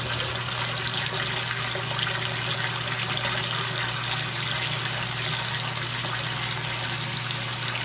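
Submersible sump pump running after its float switch has turned it on: a steady motor hum under a constant rush of water as it empties the pit.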